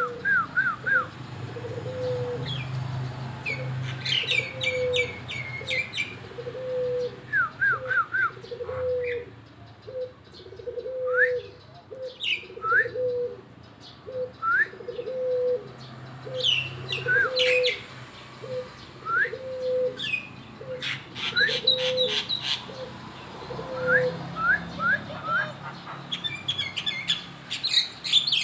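Caged songbird singing in short rising chirps and bursts of rapid clicking notes, a voice its keeper calls still hoarse. Under it a low note repeats about once a second until near the end.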